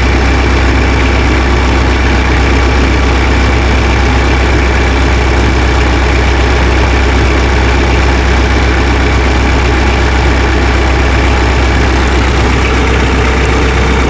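Tractor engine idling steadily, a low, even running sound with no changes in speed.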